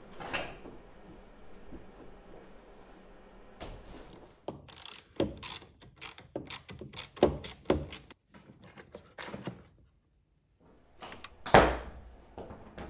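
Irregular metallic clicks and clacks of a hand wrench working the negative battery terminal clamp loose on its post. After a brief gap, a single loud thunk comes near the end.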